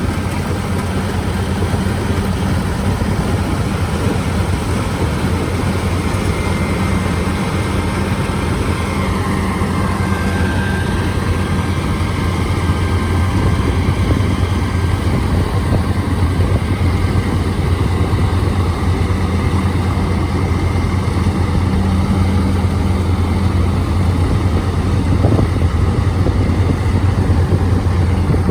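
Diesel engine of a Kubota rice combine harvester running steadily at working speed, with a faint machine whine partway through.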